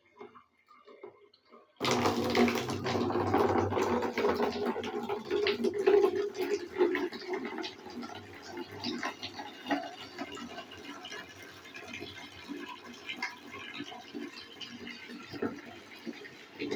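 Water running and splashing. It starts suddenly about two seconds in, is loudest for the next few seconds, then goes on lighter with many small spatters and drips.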